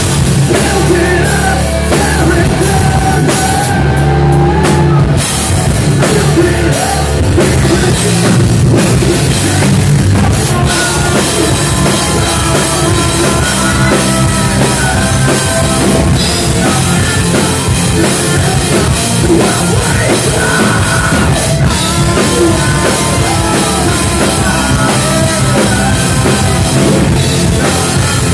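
Rock band playing live and loud: drum kit, electric guitars, bass guitar and a male singer.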